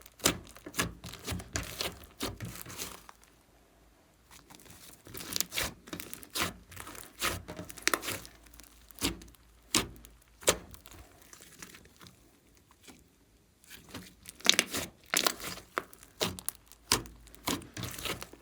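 Glossy slime being squished and stretched by hand, giving off irregular sticky clicks and crackles, with two short quiet pauses.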